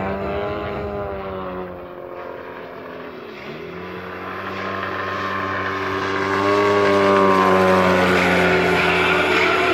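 Radio-controlled aerobatic model airplane's engine and propeller, the pitch dipping a few seconds in as it is throttled back, then rising again and growing much louder as the plane swoops in close.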